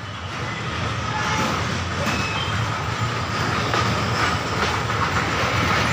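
Miniature park ride train running along its narrow-gauge track with a carriage-load of passengers, giving a steady running noise as it approaches.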